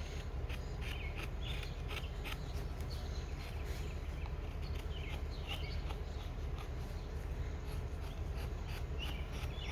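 Knife whittling wood in short scraping cuts, with a bird chirping now and then over a steady low outdoor hum.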